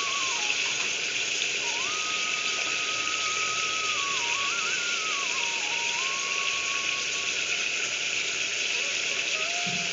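Oil and spice paste sizzling in an open aluminium pressure-cooker pot: a steady frying hiss. A faint wavering melody runs over it.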